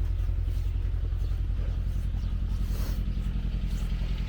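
An engine running steadily at idle: a low rumble with a fast, even pulse.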